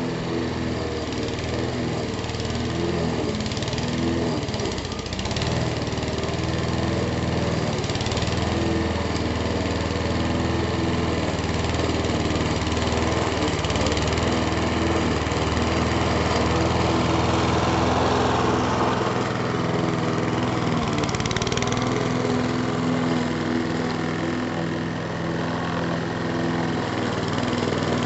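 Honda HR173 petrol rotary lawnmower's engine running steadily as it is pushed through the grass, cutting. Its note shifts slightly about two-thirds of the way through.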